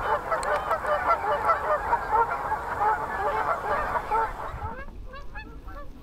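A flock of flying geese honking, a dense chorus of many overlapping calls that thins to a few scattered honks about five seconds in.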